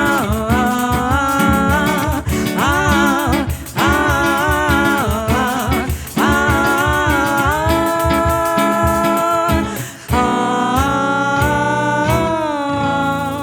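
Brazilian trio performing: a singer vocalising a melody without words, gliding between held notes, over accompaniment with a steady beat.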